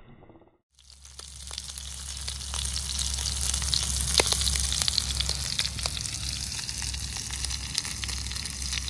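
Chunks of wild boar meat frying in a skillet over a small gas stove: a steady sizzle with scattered pops and crackles. It fades in about a second in and has a low steady rumble underneath.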